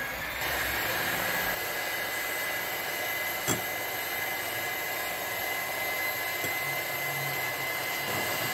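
Electric hand mixer running steadily, its two wire beaters whipping egg whites to stiff peaks in a plate. One short knock about three and a half seconds in.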